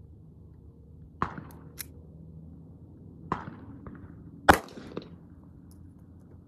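Three pistol shots from a Sig Sauer P938 Legion 9mm, about two seconds and then one second apart, the third the loudest. Fainter sharp ticks follow the first and last shots, over a steady low hum.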